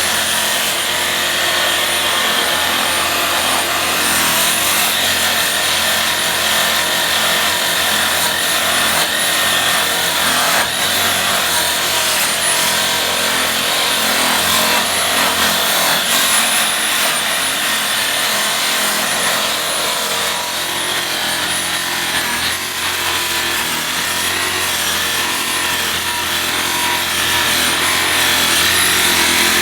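Machine buffer running steadily with its polishing pad worked against a bare aluminum wheel, a high thin whine over the steady rubbing noise.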